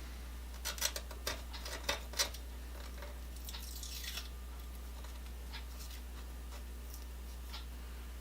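A handful of light clicks and taps in the first two seconds, then a few fainter ones, over a steady low hum.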